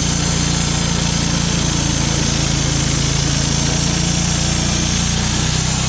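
Small gas engine of a Wood-Mizer LT35 portable sawmill running steadily at an even speed.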